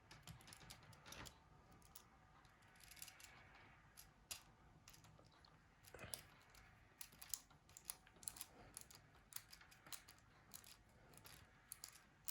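Faint, irregular small clicks and light scrapes of a precision screwdriver and tiny screws being worked into a Nokia E71's frame during reassembly.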